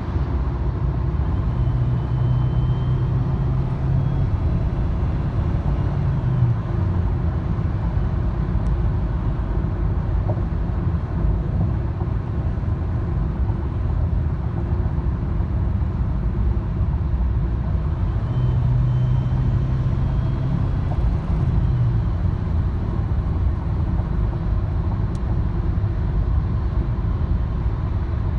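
A 2014 car running with a steady low rumble. A whining noise rises above it twice, each time for a couple of seconds: once near the start and again about two-thirds of the way through.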